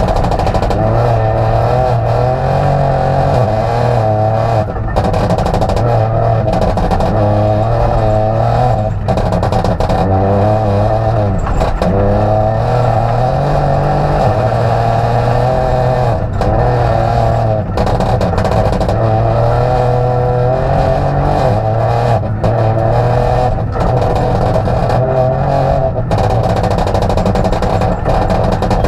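Peugeot 208 Rally4's turbocharged 1.2-litre three-cylinder engine, heard from inside the cabin at full stage pace. The revs climb and fall again and again, with brief dips at each quick gear change. A steady noise of gravel under the car runs beneath it.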